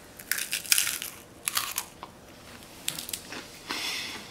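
Crunchy puffed-rice snack (a rice roller) being bitten into and chewed, crunching in several short bursts.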